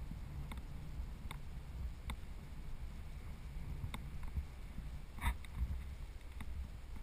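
Low, steady wind rumble on a helmet-mounted camera's microphone, with a few faint clicks and a short, louder crackle about five seconds in.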